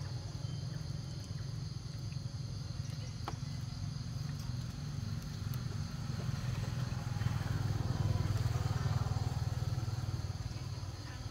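Low rumble of a motor vehicle, such as a motorbike, passing at a distance. It swells and peaks about eight seconds in, then fades.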